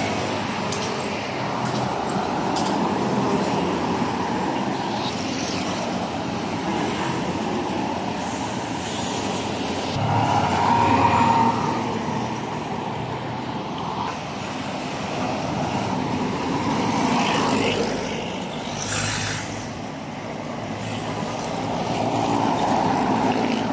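Heavy trucks and other road traffic passing close by on a multi-lane highway: a continuous rumble of engines and tyre noise that swells as each truck goes past, loudest a little before the middle, when a big truck passes with a steady whine, and swelling again near the end.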